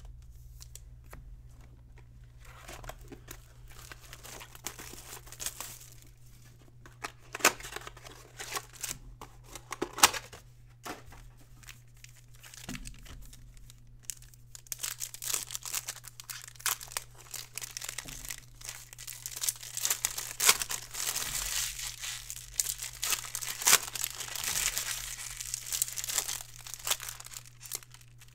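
Foil trading-card pack wrappers being handled, torn open and crinkled by hand. It begins as scattered clicks and rustles and becomes dense, continuous crinkling from about halfway through.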